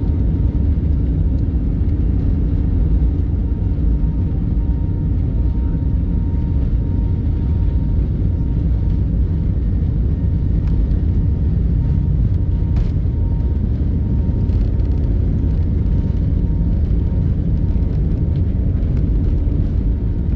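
Steady low rumble of a moving vehicle, with a faint steady high tone above it.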